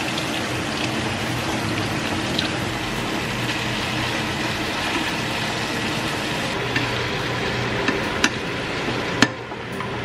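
Tap water running steadily into a stainless steel sink over a mesh strainer as food is rinsed. Two sharp clicks come near the end.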